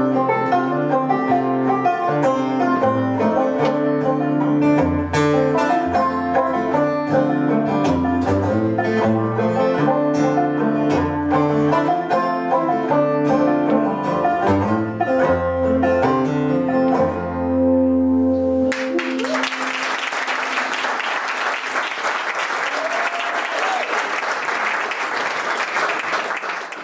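Banjo and acoustic guitar playing a bluegrass-style tune together, stopping about two-thirds of the way through. The audience then applauds.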